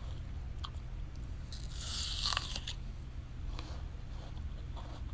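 A bite into a crisp apple, one loud crackling crunch lasting about a second, near the middle, with faint wet chewing clicks before and after.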